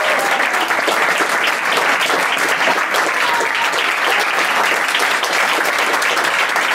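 Audience and performers applauding, dense steady clapping without a break.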